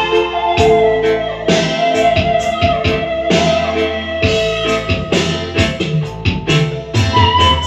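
Instrumental music: a suling bamboo-flute melody of long held notes that slide between pitches, over a band accompaniment with a steady beat.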